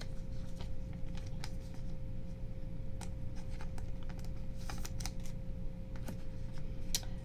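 Handling noise from a trading card being slid into a clear plastic sleeve and card packs being touched: scattered soft clicks and rustles at irregular times, over a faint steady hum.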